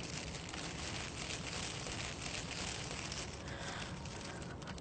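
Thin plastic bag crinkling and rustling in the hands as a wrapped package is opened.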